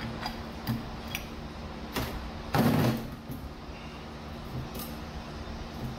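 Metal parts of a TH350 automatic transmission's clutch drum being handled and pulled apart: a few light clicks, then a louder scraping clatter of metal lasting under half a second about two and a half seconds in, over a low steady hum.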